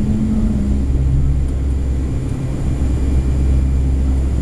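Boeing 757-300 engines and airflow heard inside the cabin during the climb-out after takeoff: a loud, steady low rumble with a faint hum above it.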